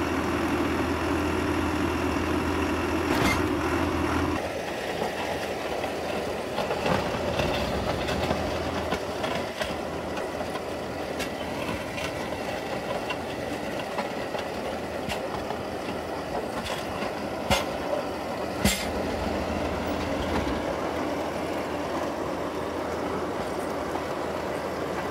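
Mahindra 2555 tractor's diesel engine running while its front snowplow blade pushes and scrapes snow across gravel, with a few sharp knocks about two-thirds of the way through.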